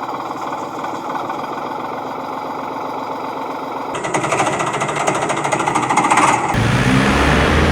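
A rapid mechanical rattling, like a small machine or power tool running, that changes abruptly twice, about four seconds in and again about six and a half seconds in; the last part is heavier, with a low hum.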